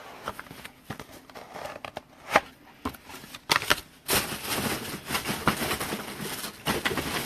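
A trading card box and its packaging being handled and opened. A few sharp clicks and snaps come first, then from about four seconds in a denser crinkling and tearing of the wrapper.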